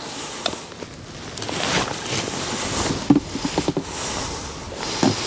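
Steady wind and water noise around a small boat on choppy water, with a cluster of sharp clicks and knocks about three seconds in and another just before the end.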